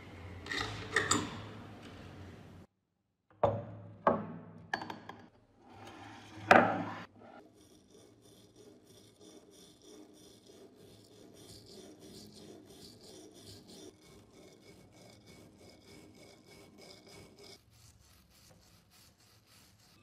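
Stiff handheld brush scrubbing a wet, rusty iron padlock. A few hard, loud strokes come about three to seven seconds in, then quick, even back-and-forth scrubbing that fades near the end.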